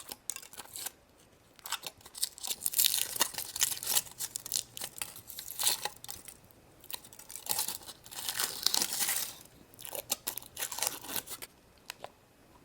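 Foil wrapper of a chocolate surprise egg crinkling and tearing as it is peeled off by hand, in irregular bursts that stop about a second before the end.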